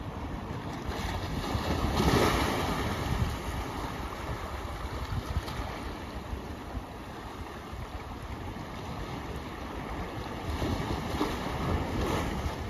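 Ocean waves washing in among shoreline rocks, a steady rush of surf that swells louder about two seconds in and again near the end as waves break over the rocks.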